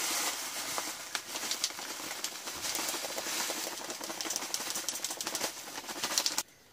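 Cactus and succulent potting soil pouring out of a plastic bag into a plastic pot: a steady granular rustle with many small ticks, together with the crinkling bag, stopping suddenly near the end.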